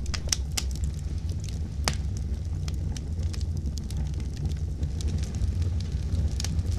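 A wood fire crackling: irregular sharp pops and snaps over a steady low rumble.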